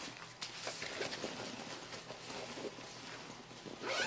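Rustling and handling noise of items being moved around and taken out of a bag, with many small scrapes and ticks and a louder swish near the end.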